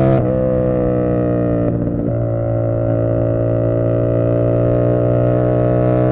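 Tuned 450SS motorcycle engine running at steady revs while cruising. Its steady drone is briefly broken twice, once just after the start and again about two seconds in.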